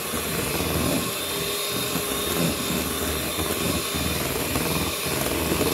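Electric hand mixer running steadily, its beaters whisking a heavy-cream mixture in a bowl.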